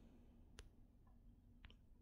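Near silence: room tone, with a faint click about half a second in and two more near the end.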